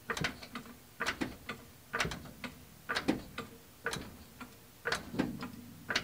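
Short bursts of metallic ratcheting clicks, repeating about once a second.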